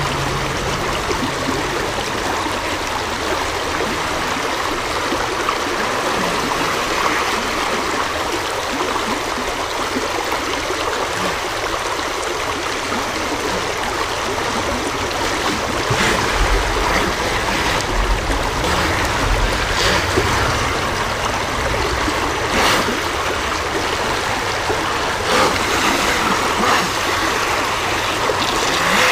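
Shallow creek water rushing and gurgling over rocks right at the microphone, a steady rush with a few short louder moments in the second half.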